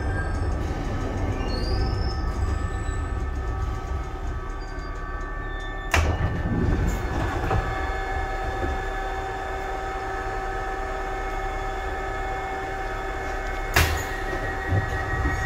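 Glasgow Subway car standing at a platform, its equipment giving a steady hum with a faint whine. A sharp clunk about six seconds in comes as the doors open, and a second clunk follows near the end.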